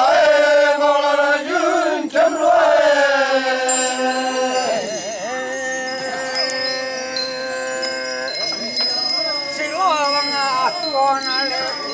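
A group of voices singing a traditional Ollo Naga festival chant in long held notes that slide up and down between them. Small bells tinkle throughout.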